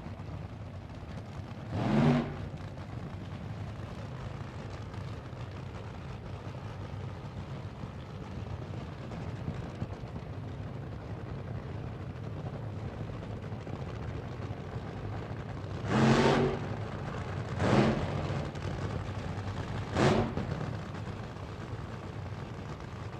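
Car sound effect: a steady low engine-like hum, broken by four short, loud surges, one about two seconds in and three close together about sixteen to twenty seconds in.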